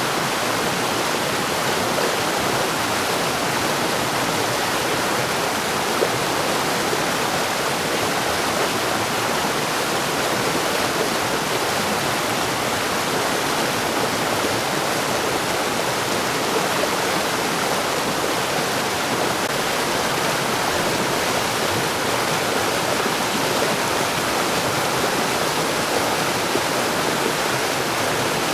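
Mountain stream rushing over rocks, a steady even wash of running water.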